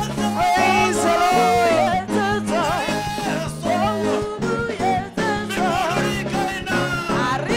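Live gospel praise music: a singer's voice with vibrato over an electronic keyboard and a drum kit, with a steady beat.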